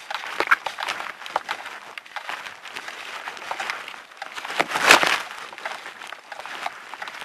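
Footsteps crunching and rustling through dry fallen leaves, a steady crackle of small clicks with a louder rustle about five seconds in.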